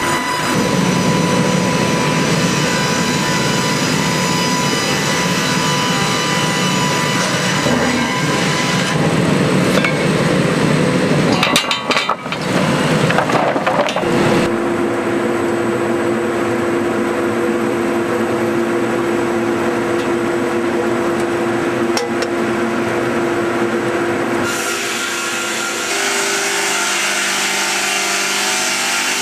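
Sawmill line running and sawing logs into boards: saw units and conveyors making a steady, loud mechanical din. The sound changes abruptly several times, with a steady hum through the middle part.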